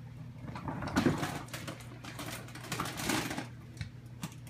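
A plastic dog-food storage bin being pushed across the floor, scraping and rattling with a string of small knocks and clicks.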